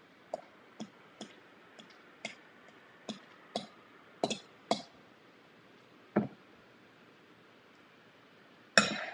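Spoon clicking against a glass mixing bowl while filling is scooped out, about two sharp clicks a second for the first five seconds, then a single click. A short louder rustle comes near the end.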